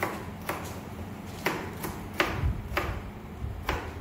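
Kitchen knife chopping cucumber on a plastic cutting board: about eight sharp, unevenly spaced knocks of the blade on the board.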